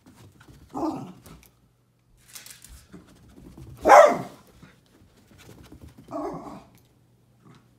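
Elderly West Highland white terrier giving three short barks while chasing a laser dot in play; the loudest comes about four seconds in.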